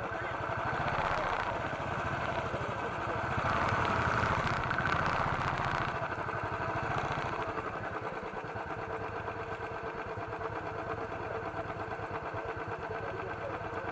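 Motorcycle engine idling close by with an even, steady beat. It is louder for the first few seconds, then settles.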